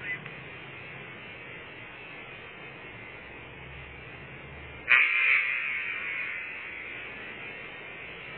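A single hunting rifle shot about five seconds in, sharp and loud, its report rolling away and fading over about two seconds. Before it there is only a steady low hiss.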